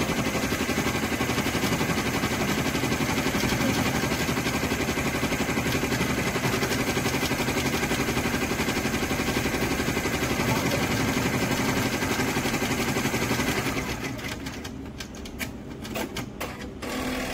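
Brother Entrepreneur Pro multi-needle computerized embroidery machine stitching lettering onto a ribbon, its needle going in a fast, steady rhythm. About fourteen seconds in the stitching stops, leaving scattered clicks and short mechanical sounds.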